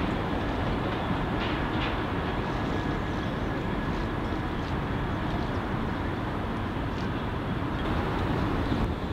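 A Class 66 diesel locomotive and its train running slowly round a curve, heard as a steady low rumble. There are a couple of brief high squeaks about one and a half seconds in.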